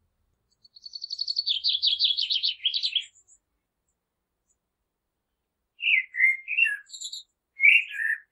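Common blackbird singing: a fast twittering run of high notes lasting about two seconds. After a pause come two short phrases of low, fluted whistles mixed with a few thin, squeaky high notes.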